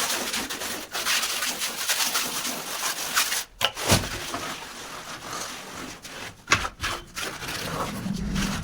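Continuous rough scraping and rubbing of a mason's tool working cement mortar, with a few sharp knocks about halfway through and again later on.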